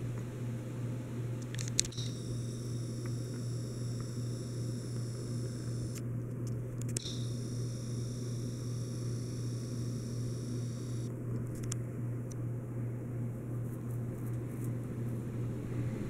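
Encon Monarch ceiling fan running, its motor giving a steady low hum under the soft whoosh of the spinning blades. A faint high whine comes in twice, for a few seconds each time.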